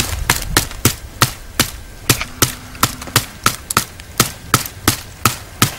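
Knife blade chopping into a green, freshly cut branch, trimming off its side shoots: a steady series of sharp knocks, about three a second.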